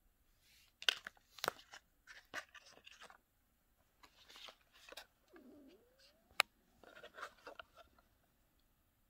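A hand handling cosmetic samples and their packaging: a cardboard perfume box being closed, and small tubes and packets set down, giving scattered taps, clicks and brief rustling. There is a single sharp click about six seconds in, and a short squeak rising in pitch just before it.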